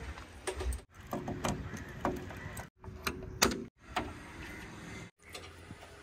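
A few sharp knocks and clicks from a backhoe loader's steps and cab door as a man climbs up into the cab, over a low wind rumble, with no engine running. The sound cuts out briefly several times.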